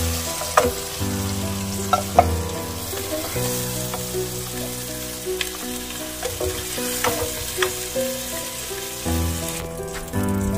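Oil and butter sizzling in a pot as fried onions and tomato are scooped out with a spatula, which scrapes and taps sharply against the pot and plate every second or two.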